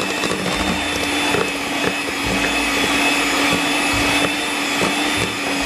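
Electric hand mixer running at a steady speed with a constant motor hum and whine, its beaters working a thick cookie dough of margarine, egg yolk and flour in a stainless steel bowl.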